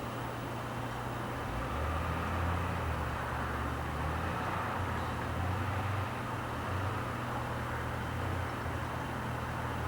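Traffic crossing the George Washington Bridge: a steady low drone of vehicles and tyres with a deep hum, growing a little louder about a second and a half in.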